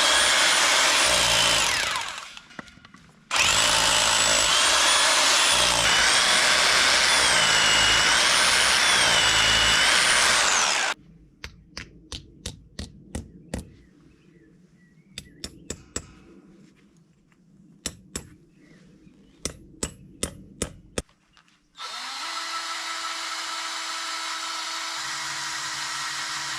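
Power drill drilling in two long runs, its whine dipping and rising in pitch under load, then a series of sharp knocks in small groups, then the drill running again more steadily and quietly.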